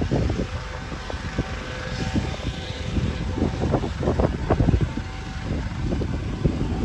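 Wind buffeting the microphone in gusts over the faint, steady running of an air ambulance helicopter on the ground.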